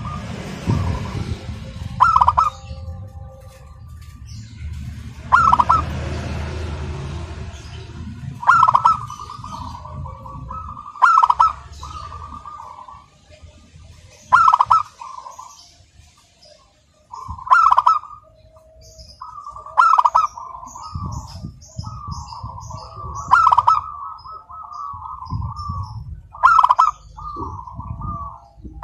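Zebra dove cooing its song, about nine times, roughly every three seconds: each phrase opens with a loud clipped note and runs into a rolling trill. Faint high chirps of other small birds sound in the second half, and a low rumble lies under the first few seconds.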